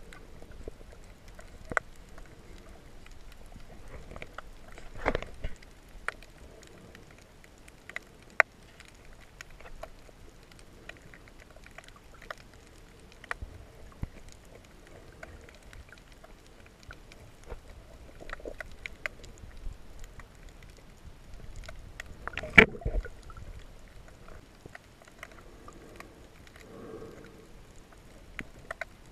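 Muffled underwater water noise picked up by a submerged camera, with scattered sharp clicks and a few louder knocks, the loudest about three quarters of the way through.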